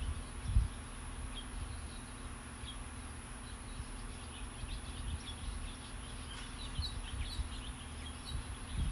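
Small birds chirping in short, scattered calls, more often in the second half, over a steady low hum, with a brief low rumble just after the start and again at the end.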